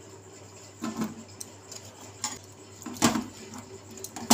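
Raw potato slices being tipped into a stainless steel bowl of water and rinsed by hand, with a few light knocks and clinks against the steel bowl, the sharpest near the end.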